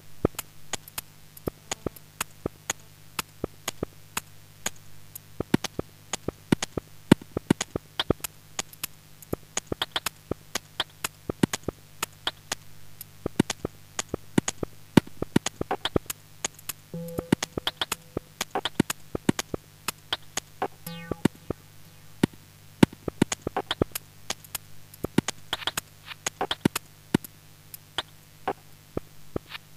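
Minimal lo-fi electronic music: a steady low synth drone under a scatter of sharp, irregular clicks and crackles, with a short held tone breaking in twice past the middle.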